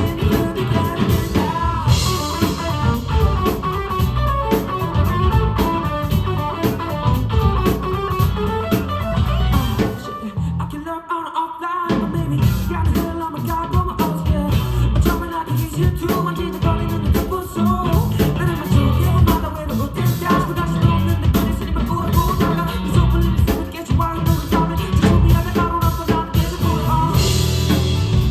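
A live band playing a pop-rock song with drum kit and guitar. About ten seconds in, the drums and bass drop out for about two seconds, then the full band comes back in.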